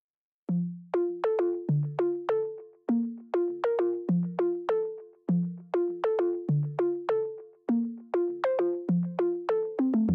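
Background music: a melody of short notes, each struck and quickly fading away, about two or three a second, starting about half a second in.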